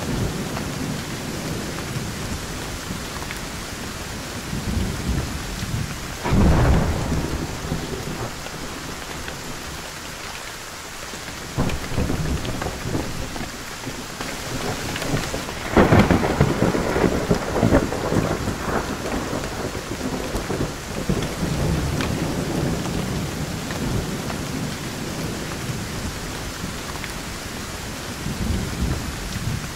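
Thunderstorm with steady rain and rolling thunder. A thunderclap breaks about six seconds in, a weaker rumble follows near the middle, and the loudest crack comes at about sixteen seconds, rumbling on for a few seconds after.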